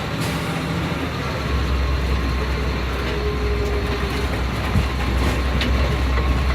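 2004 Blue Bird Vision school bus on the move, heard from inside the cab: its Cat C7 diesel engine and road noise make a steady low rumble that gets louder about a second and a half in.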